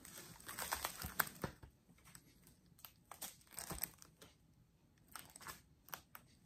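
Plastic card-sleeve pages of an Ultra Pro trading-card binder crinkling and rustling as they are flipped: a dense run of crinkles in the first second and a half, then several shorter separate rustles.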